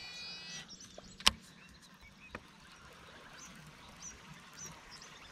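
Faint baitcasting reel sounds: a brief high whine at the start, then one sharp click a little over a second in and a smaller one about a second later. Short, faint high chirps from wildlife follow over quiet open-water ambience.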